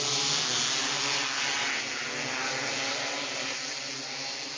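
A pack of 270 micro sprint cars racing past on a dirt track, engines running at high revs. The sound is loudest at the start and slowly fades as the cars move away.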